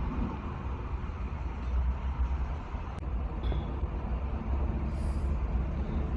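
A GMC Yukon's 6.2-litre V8 running with a steady low rumble. This engine has logged a P0300 misfire code on bank 1.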